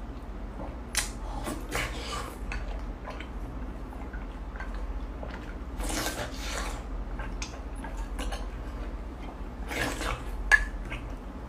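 Close wet mouth sounds of someone slurping and chewing soft fat meat, in short bursts, with a spoon scraping and clinking on a ceramic plate; a sharp clink near the end is the loudest sound.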